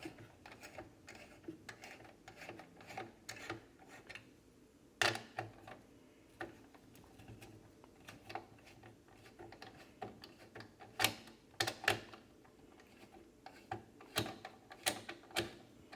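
Scattered small clicks and knocks of hands working inside a desktop PC case, with a few sharper taps about five seconds in and again around eleven to fifteen seconds.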